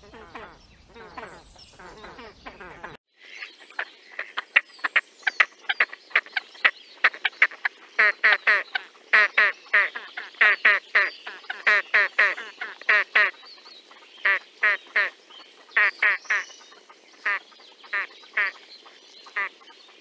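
Great crested grebes calling at the nest: a long run of short, harsh calls, a few a second, quieter at first, then louder after a brief dropout about three seconds in.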